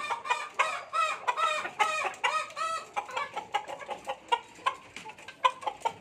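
Caged chickens clucking: many short, arched calls in quick succession, densest in the first three seconds and thinning out after.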